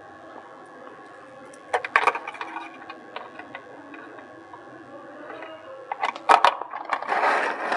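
Handling noise: a cluster of sharp clicks about two seconds in, more clicks around six seconds, then a louder stretch of rustling and scraping near the end.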